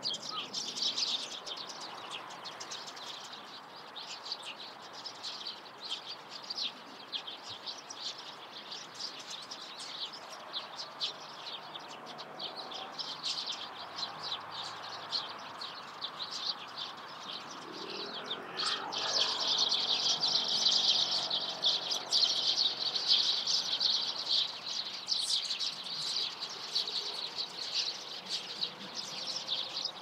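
A flock of Eurasian tree sparrows chirping: a steady stream of short, high chirps that swells about two-thirds of the way through into a dense, overlapping chorus of many birds calling at once. A fainter low drone passes underneath shortly before the chorus swells.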